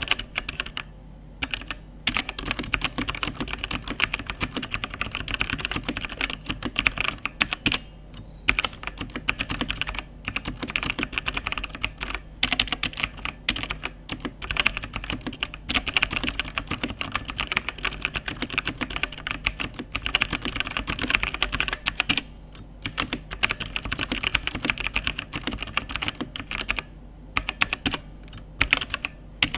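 Typing on a Fantech Maxcore MK852 mechanical keyboard with Outemu Brown switches: a fast, continuous clatter of key presses, broken by a few short pauses.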